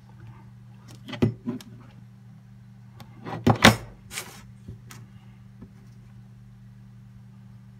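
Handling noise from a smartphone being moved about on a desk: a few knocks and clicks, the loudest about three and a half seconds in, then a short rubbing scrape, over a steady low hum.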